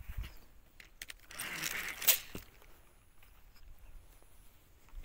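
Rustling handling noise with a sharp click about two seconds in, then a few faint scattered clicks, as the handheld camera is moved about among tall grass.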